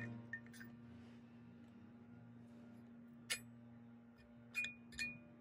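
Light clicks and taps as a Motogadget Motoscope Mini gauge is pressed into its machined slot in an aluminium triple clamp. There is one sharp click a little past three seconds in, then two short ringing clinks about half a second apart near the end, over a steady low hum.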